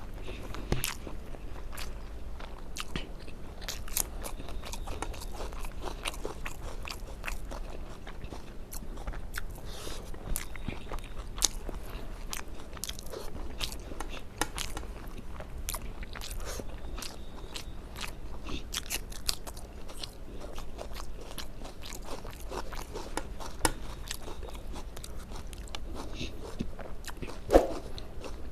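A person chewing and eating a meal of rice with fish and egg curry: a steady run of small mouth clicks and smacks, with one louder knock near the end.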